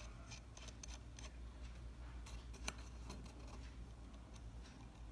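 Faint small metallic clicks and scrapes as a knurled balance-staff removal tool is threaded and seated on a watch balance in a staking set, with one sharper click about two and a half seconds in.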